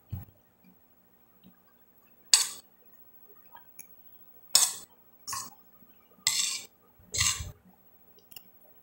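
Metal spoon scraping and clinking against a glass plate while food is scooped up, in about six short strokes a second or two apart, two of them near the end a little longer.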